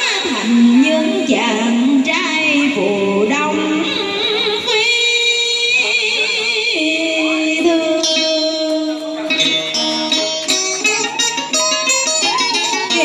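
Live southern Vietnamese đờn ca tài tử music: plucked string instruments play bending, wavering notes and a few held tones, breaking into a run of quick plucked notes near the end.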